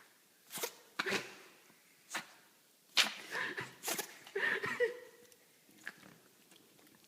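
Yorkshire terrier puppy sneezing over and over: a run of short, sharp sneezes with gaps of about half a second to a second between them. The loudest comes about three seconds in.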